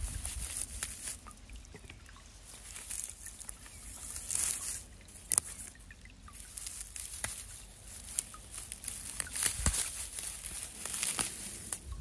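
Rustling and crackling in dry ostrich-fern litter and leafy undergrowth as fiddleheads are picked by hand, with many small clicks and two sharper snaps, about five and ten seconds in.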